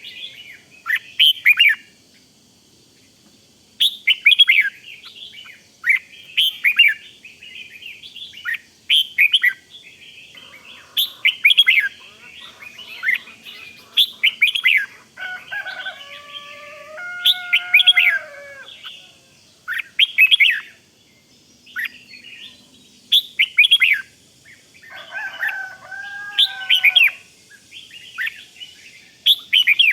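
Red-whiskered bulbul singing: short, bright chirping song phrases repeated every second or two, after a brief pause near the start. Twice, midway and near the end, a lower, steadier call sounds under the song.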